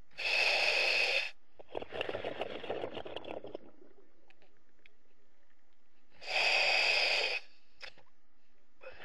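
Diver breathing underwater through a breathing regulator: two hissing inhalations of about a second each, some six seconds apart, with a crackling, bubbling exhalation between them.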